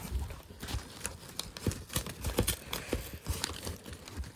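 Cardboard shipping box being cut open and handled: irregular taps, knocks and scrapes, with some crinkling of the packing newspaper inside.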